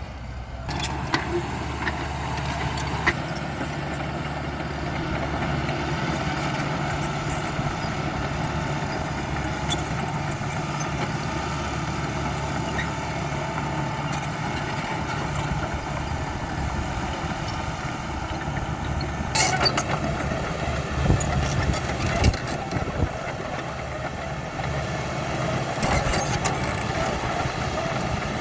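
Diesel engine of a Caterpillar D5K XL crawler dozer running steadily. Bursts of knocks and rattling come in about twenty seconds in and again near the end.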